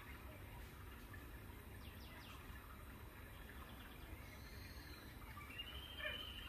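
Faint outdoor background: a steady low rumble with a few faint bird chirps, and one slightly louder call near the end.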